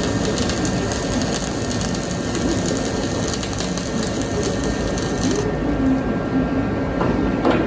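Gas-shielded flux-cored (Dual Shield) welding arc crackling steadily, then stopping about five and a half seconds in. A steady low hum continues underneath, with a couple of sharp clicks near the end.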